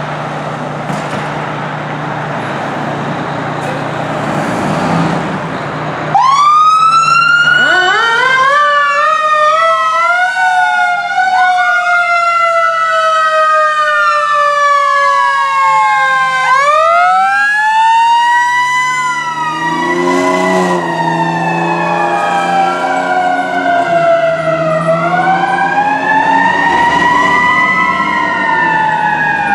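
Fire engine idling with a steady low hum. About six seconds in its siren starts suddenly and loudly, winds up in pitch and slowly falls away, then winds up again about ten seconds later. After that it keeps wailing up and down, with several tones overlapping.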